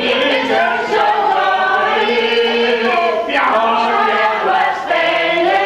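A group of people singing together, several voices at once on long held notes.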